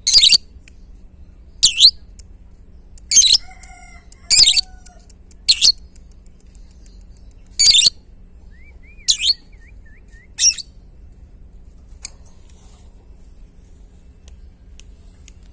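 Lovebird giving the 'ngetik' (typing) call: eight short, shrill bursts of rapid chatter, each under half a second, spaced every one to two seconds, then stopping about ten seconds in.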